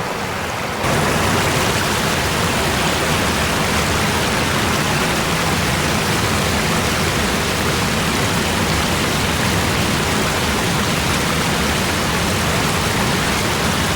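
Waterfall rushing: a steady, loud wash of falling water that jumps louder about a second in.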